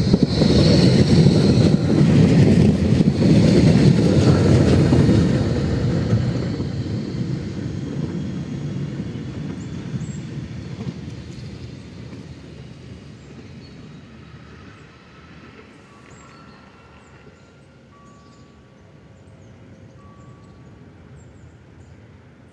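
Tram running past close by on its rails, loudest in the first few seconds, then fading steadily over about ten seconds as it moves away.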